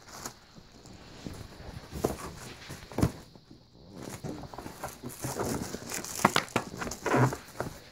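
Irregular knocks, taps and rustling of someone moving about and handling things on a carpeted floor close to the microphone, with a sharper cluster of clicks and knocks near the end.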